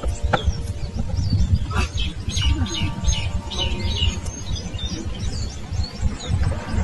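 Wild birds chirping in quick, repeated short calls over a constant low rumble.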